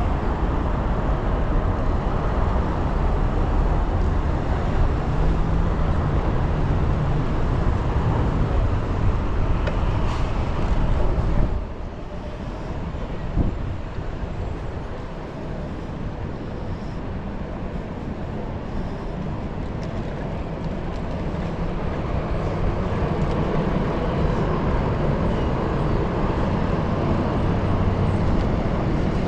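City street traffic heard from a moving bicycle, with a heavy low rumble that drops off suddenly about a third of the way through, then slowly builds again; a single short knock comes shortly after the drop.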